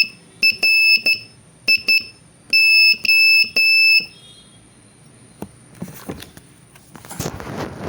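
Morse code practice tone: a single high steady beep keyed in dots and dashes for about four seconds, sending the end of a dash for T, then R (dot-dash-dot), I (dot-dot) and O (three dashes), spelling "TRIO". A faint soft hiss or rustle follows near the end.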